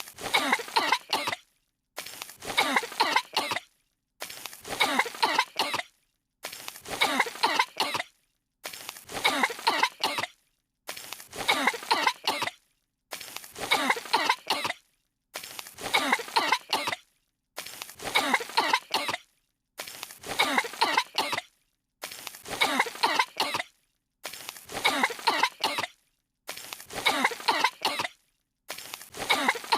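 Two cartoon characters' voices coughing, one short clip of coughs looped over and over, about every two seconds, with a brief silent gap between repeats.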